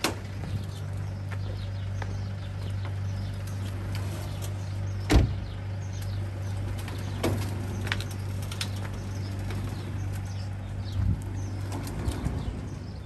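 A vehicle engine idling with a steady low hum. A car door slams shut about five seconds in, and a few lighter knocks and clicks follow.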